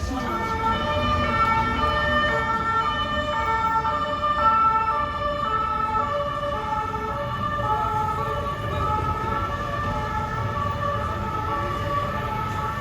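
Two-tone emergency vehicle siren alternating steadily between a high and a low note, with a low traffic rumble underneath.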